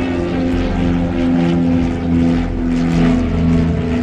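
Piston engines and propellers of a twin-engine light airplane in flight, a steady drone that throbs slowly.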